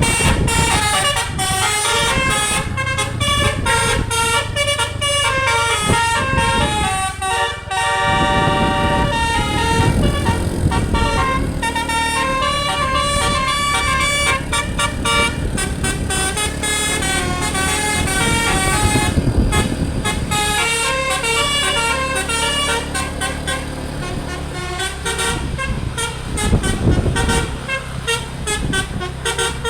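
Telolet basuri multi-tone musical air horn (DAV Musical Airhorn) on a tour bus playing a melody of quick stepped notes, over the low running of the bus's engine.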